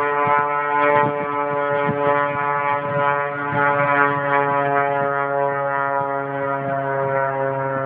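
Cessna 185 Skywagon's six-cylinder piston engine and propeller passing in flight, a steady droning hum made of many even tones.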